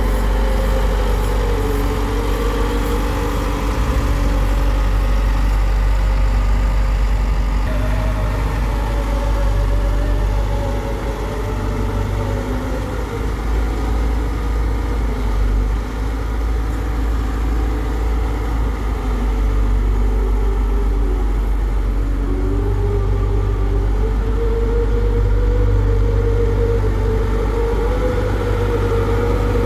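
Hyundai Robex 1300W wheeled excavator's diesel engine running steadily, with a deep rumble and a whine that drifts up and down in pitch.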